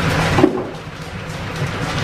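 Background music, with a brief dip in loudness about half a second in.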